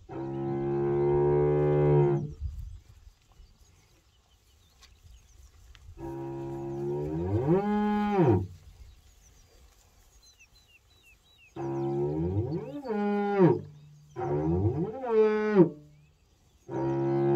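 Hereford cattle mooing: five long moos with quiet gaps between them. Some are held on one pitch, others rise and then drop away at the end. Faint bird chirps sound behind them.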